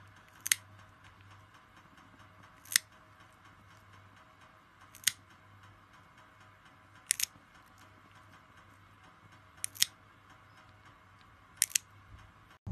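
Pet nail clipper snipping through a cat's claws: six sharp clicks about every two to two and a half seconds, a few of them doubled.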